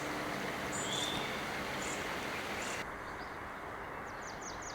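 Outdoor ambience: a steady low rumble of background noise with a few faint, short, high bird chirps about a second in and again near the end.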